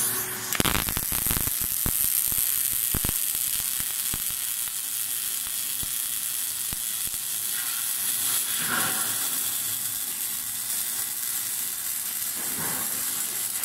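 Robotic MIG welding arc on a steel pipe joint. It strikes about half a second in with a burst of crackling pops, then runs as a steady crackling hiss and cuts off at the very end.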